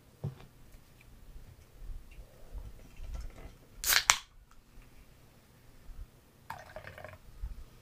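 Glassware and a soda can being handled on a rubber bar mat while a drink is mixed, with soft knocks and one short, sharp, loud noise about four seconds in and a briefer one near the end.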